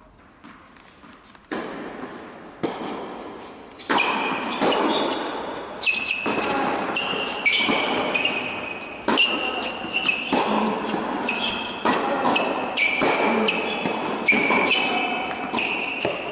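Tennis rally on an indoor hard court: ball hits and bounces echoing through a large hall, one every half second to second after a quiet start, with short high-pitched shoe squeaks on the court surface between them.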